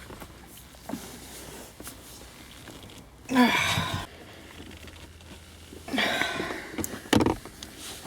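A person grunts with effort twice, about three seconds in and again near six seconds, straining to pull off a stuck Jeep transfer case shifter knob. A few small knocks come from the hands working the knob.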